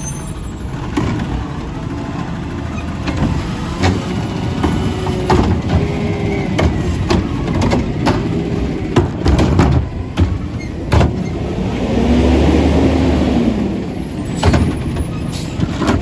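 Autocar ACX McNeilus Meridian natural-gas front-load garbage truck running while its automated arm lifts and tips a wheeled trash cart into the front-mounted can. The engine revs rise and fall with the hydraulics twice, and a string of knocks and bangs comes as the cart is shaken out and set down.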